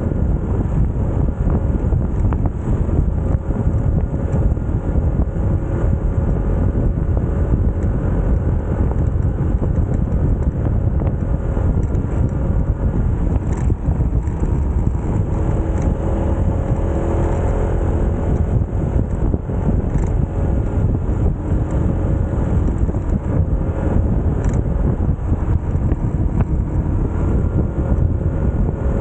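Small motorcycle under way at a steady pace: the engine runs evenly beneath a heavy low rumble of wind on the microphone.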